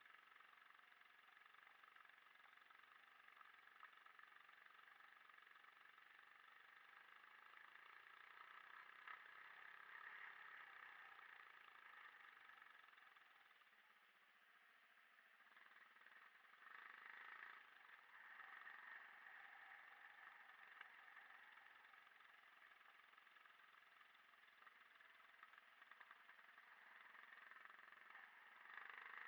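Yamaha WR 125 R's single-cylinder four-stroke engine running faintly, its note rising and falling: louder about ten seconds in, dropping away around fourteen seconds, then picking up sharply about seventeen seconds in.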